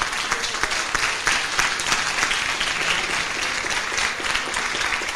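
Audience applauding: many people clapping together, steady throughout and starting to thin out near the end.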